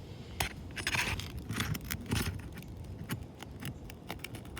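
Irregular scraping and clicking of a metal roofing tool being worked under asphalt shingles to pry them loose.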